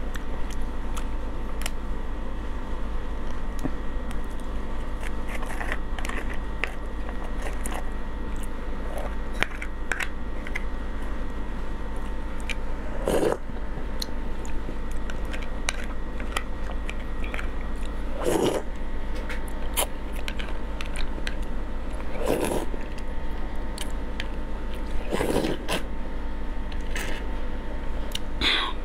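Close-miked eating of marinated crab: small crunches, chewing and wet mouth noises, with about five louder short sucks as the crab shell is sucked at, over a steady faint electrical hum.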